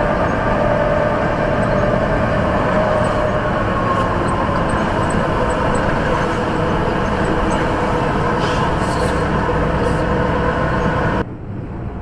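Semi-truck cab interior at highway speed: steady engine drone and road noise with a faint whine. Near the end it drops abruptly to quieter, slow-traffic cab noise.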